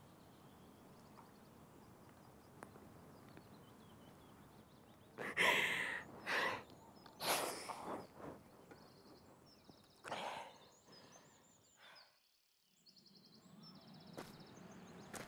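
A woman sighing and blowing out several short, hard breaths, a cluster about five to eight seconds in and one more around ten seconds, as she fights back tears. Faint bird chirps can be heard in the outdoor background.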